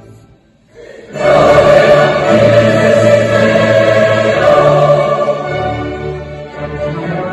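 Mass choir singing with orchestral accompaniment. After a brief pause in the first second, the full choir comes in loudly on a sustained phrase.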